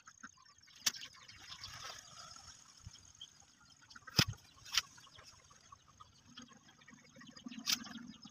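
A hollow clay brick being handled on gravel: a few sharp clicks and knocks, four in all, the one about four seconds in the loudest and deepest, with faint rustling between.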